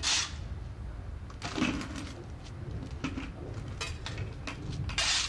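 A steel shovel scraping across concrete as it scoops loose, gravelly cold-patch asphalt mix, and the mix rattling into a plastic bucket. It comes as a few separate strokes, the loudest at the start, about a second and a half in, and near the end, with small clicks of grit between.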